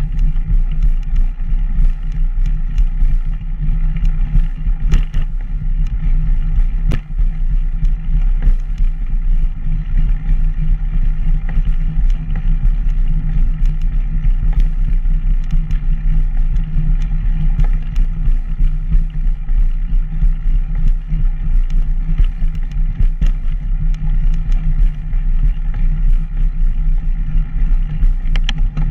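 Steady drone and rattle of a ride along a concrete path, with many small sharp knocks as it rolls over bumps and joints in the pavement.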